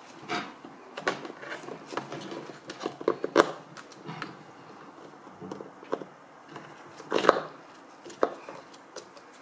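Scattered plastic clicks and knocks as a desk fan's plastic blade is pushed back onto the motor shaft and turned by hand, with the two loudest knocks about three and a half and seven seconds in.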